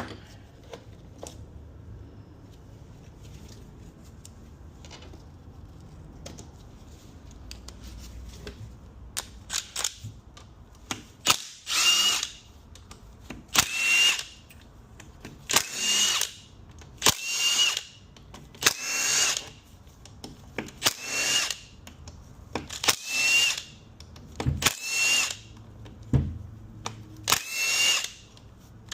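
Power drill/driver running in about ten short whining bursts, roughly one every two seconds, starting about eleven seconds in, spinning out bolts during a transmission teardown; before that, only light handling clicks.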